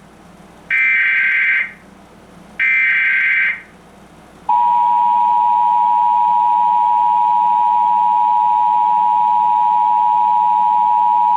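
Emergency Alert System test tones: two SAME digital header bursts, each a raspy data screech about a second long and a second apart, then about four and a half seconds in the EAS two-tone attention signal (853 and 960 Hz) starts and holds steady.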